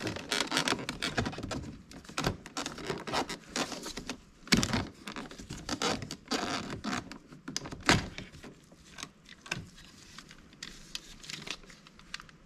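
Plastic interior door-handle trim being pried loose and handled on a car door panel: an irregular run of clicks, scrapes and rustles, with two sharp knocks about four and a half and eight seconds in.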